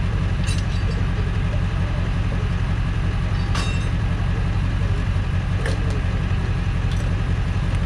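Tow truck engine idling steadily, with a few short sharp clicks over it.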